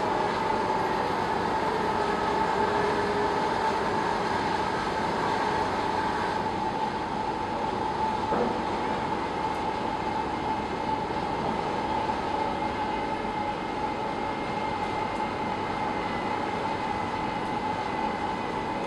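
Bored piling rig running steadily, a constant machine drone with a high whine and no knocking.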